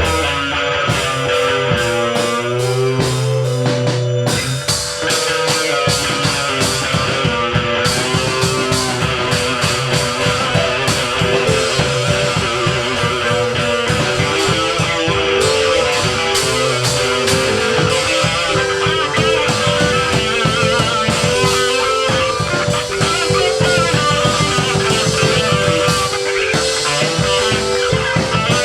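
Rock music with electric guitar over bass and a drum kit, playing loudly and steadily; the drum beat becomes more prominent about five seconds in.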